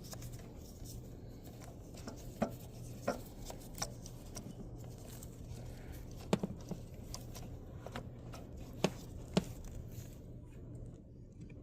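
Scattered light clicks and knocks of hands handling parts in a car's engine bay, moving components aside to reach the last ignition coil. The clicks fall irregularly, about half a dozen in all, over a steady low hum.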